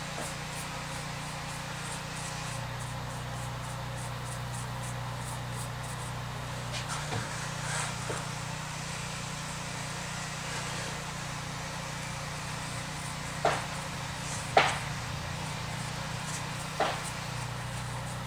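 A chip brush dabbing and scratching paint onto a cast-iron exhaust manifold, heard as quick faint ticks in the first few seconds, over a steady low hum. Three sharp clicks come in the second half, the loudest about three quarters of the way in.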